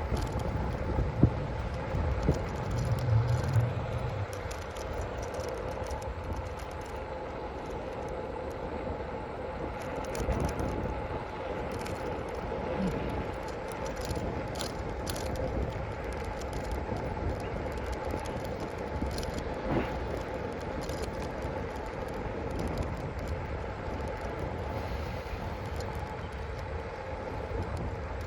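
Steady running noise of a ridden vehicle, a constant hum over low rumble and rattle, with a few louder bumps and wind buffeting in the first few seconds.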